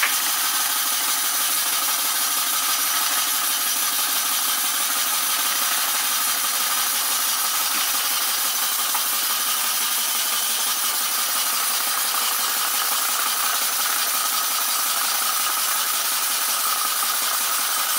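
Polish school model steam engine running steadily, driving a small generator through an O-ring cord belt, with a continuous even mechanical running sound.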